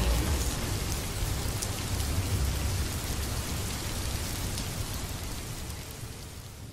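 Recorded rain falling steadily, with a low rumble underneath, slowly fading out.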